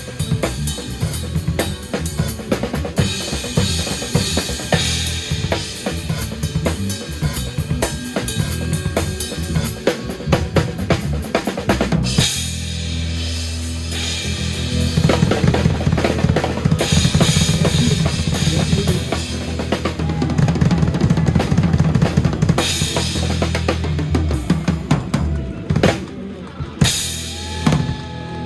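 Live jazz-funk band playing with the drum kit loudest: dense snare and bass-drum fills for about twelve seconds, then a long held low bass note under cymbal wash, with a few last drum hits near the end.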